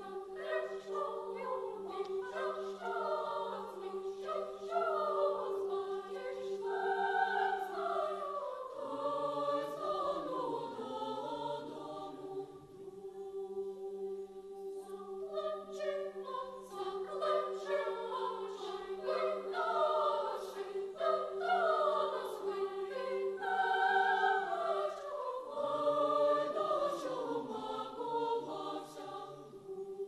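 Children's choir singing in several parts: moving melody lines over a long steady held note.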